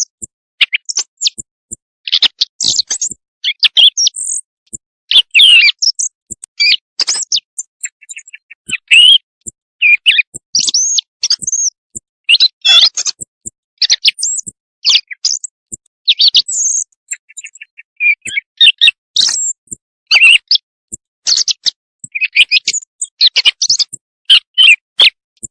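Recorded bird calls played as a night-time hunting lure: a rapid, irregular string of short, high chirps and trills, one after another with brief gaps.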